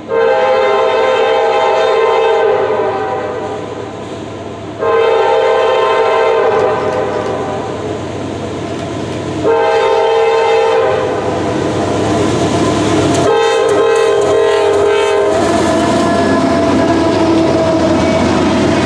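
Freight locomotive air horn sounding the grade-crossing pattern: two long blasts, a short one and a final blast as the train approaches. Then the train passes close by, with steady wheel-and-rail noise and wheels clicking over rail joints as the autorack cars go through.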